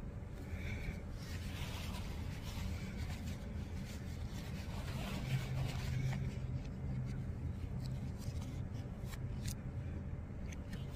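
Quiet eating sounds: chewing, and a paper napkin rubbed over a plastic fork, with a few soft clicks over a steady low hum.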